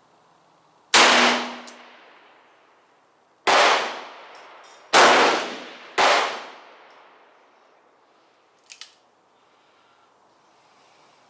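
Four shots from a .44 Special Bisley single-action revolver, fired at uneven intervals a second or two apart. The rounds are light handloads of 262-grain cast round-nose bullets over 4.5 grains of Bullseye powder, and each shot rings out and dies away over about a second. A short click follows near the end.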